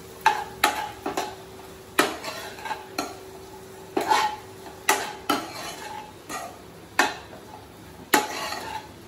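A steel spoon stirring penne pasta and vegetables in a non-stick kadai, knocking and scraping against the pan about once a second, over a light sizzle of the food frying.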